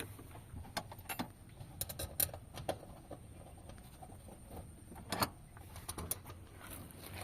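Scattered light clicks and metal taps of tools and parts being handled while a new fuel pump is fitted, over a low steady background rumble.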